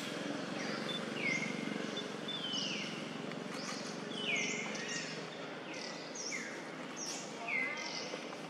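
Birds calling over and over, each call a quick whistle that falls and settles on a short held note, about one a second and sometimes overlapping, over a steady low background hum.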